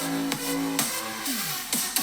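Electronic dance music played through a small portable Bluetooth speaker with a single 3-watt driver, thin in the deep bass. Steady drum hits run under held synth notes, and several synth notes slide downward in pitch near the end.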